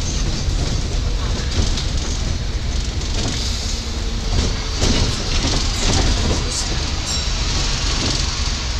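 Steady low rumble of a moving double-decker bus heard from inside its upper deck, with the bodywork and windows rattling now and then.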